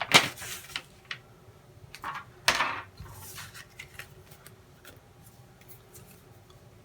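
Small clicks and knocks of light parts being handled and set down, with a short rustle about two and a half seconds in, then only faint ticks.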